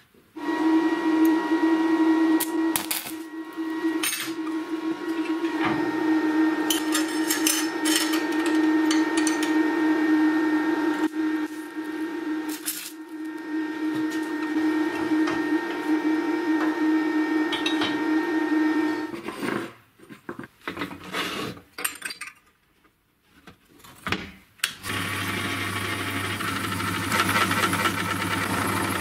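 Electric welding on steel parts clamped in a bench vise: a steady crackling buzz for most of the first two-thirds. After a few short knocks, a drill press runs steadily near the end, drilling square steel tube.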